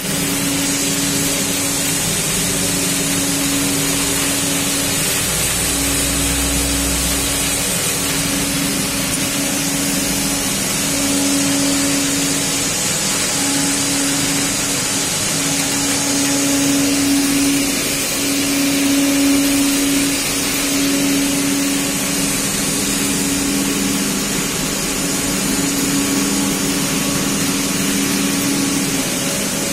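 Corrugated metal flexible hose-making machine running steadily: a constant mechanical hum over a hiss, the hum breaking off briefly every couple of seconds.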